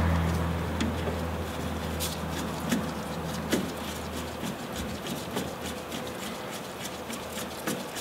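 Light metallic clicks and ticks of a steel jam nut being spun by hand onto a threaded tie-rod end, with glove handling. A steady low hum underneath stops about halfway through.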